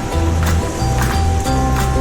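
Background music with a steady drum beat and a deep bass line.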